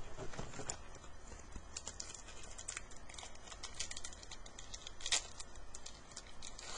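A hockey card pack wrapper being crinkled and worked open by hand: an irregular run of small crackles and clicks, a pack that is hard to open.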